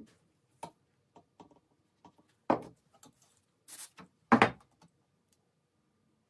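Handling noise of thin wood strips and a wire lamp-shade frame on a workbench: scattered clicks and knocks, with a loud knock about two and a half seconds in. Near the middle comes a short spray-can hiss, followed at once by another loud knock.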